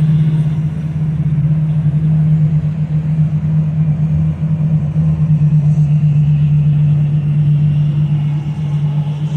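Large motor yacht's diesel engines running as it cruises slowly past: a steady low drone with a slight rapid pulsing.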